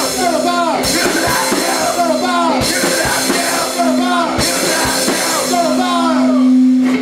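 Live rock band playing a punk-style song: drums hitting under a long held low note, with a sliding, falling melodic phrase that repeats about every two seconds.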